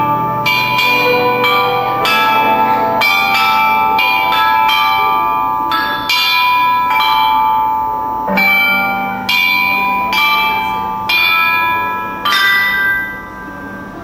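Chinese bronze chime bells (bianzhong) struck with a mallet, playing a slow melody of about one note a second, each note ringing on into the next. The last stroke falls about twelve seconds in and rings away.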